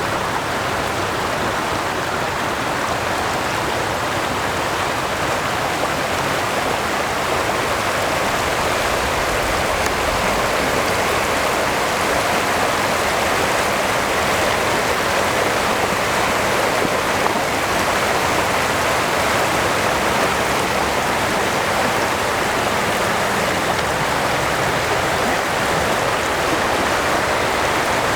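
Floodwater rushing steadily, a constant even rush with no breaks.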